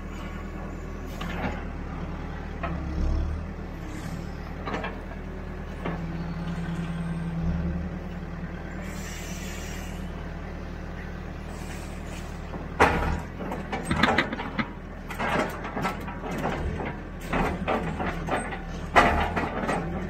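Backhoe's diesel engine running steadily as the operator works the hydraulic arm, with the hydraulics straining for a couple of seconds midway. Near the end come a run of sharp knocks and clatter as the bucket digs into the dam.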